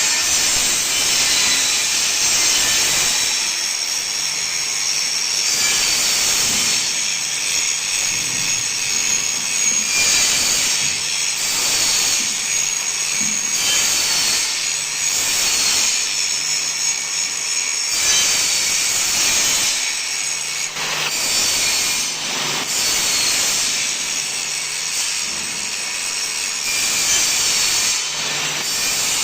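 Grinding wheel sharpening a steel crusher blade: a continuous high, abrasive grinding hiss that swells and eases every couple of seconds as the wheel works along the edge.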